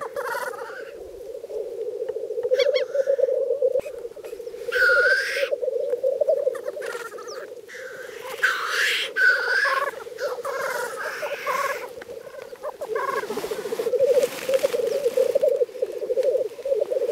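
Male black grouse at a lek: a continuous bubbling, cooing chorus, with hissing 'tchu-wheesh' calls breaking in every few seconds, the loudest about five, eight and fourteen seconds in.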